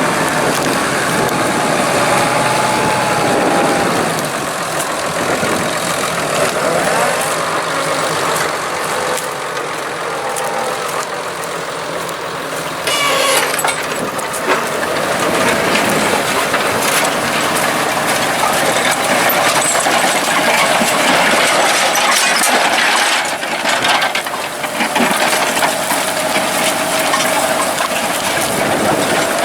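Tractor engine running steadily as it pulls a reversible plough through the field.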